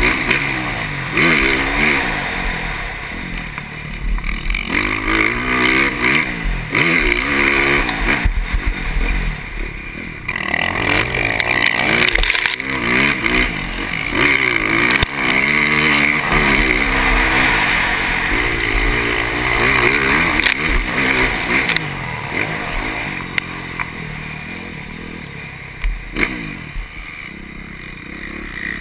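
KTM motocross bike engine revving hard and falling off again and again through the gears over jumps and corners, heard from the rider's helmet camera. It eases off for a few seconds near the end.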